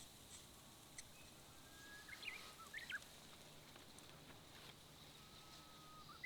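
A bird singing faintly twice, each phrase a long held whistle followed by a quick run of rising and falling notes.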